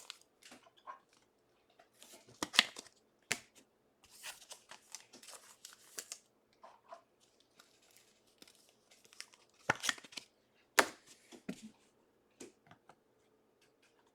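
Trading cards and their plastic packaging being handled and opened: intermittent crinkling, rustling and tearing, with a few sharp clicks and snaps.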